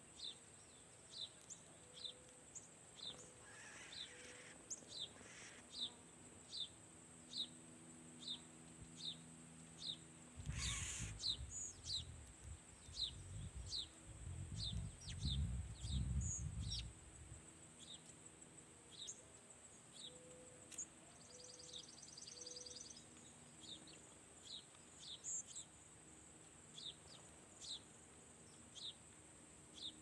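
A sparrow chirping over and over, short single chirps about once a second. A low rumble swells up about ten seconds in and dies away around seventeen seconds.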